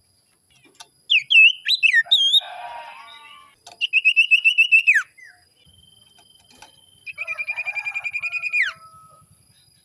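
Common iora (cipoh) singing: loud swooping whistled notes, a short harsh chatter, then two rapid trills, each ending in a falling sweep.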